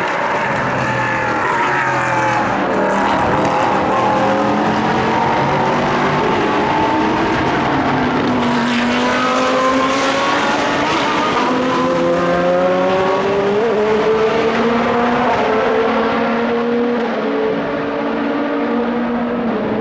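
Several high-performance car engines running on a racetrack, overlapping, their pitch falling and rising as the cars lift off, accelerate and pass.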